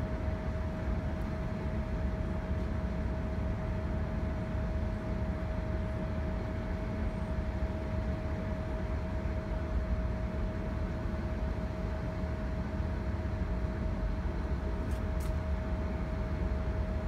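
Transit bus idling at a standstill: a steady low engine rumble with a constant high whine.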